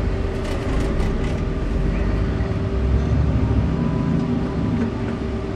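Bus engine heard from inside the cab, pulling away from a stop and growing louder as it accelerates, over a steady cabin hum.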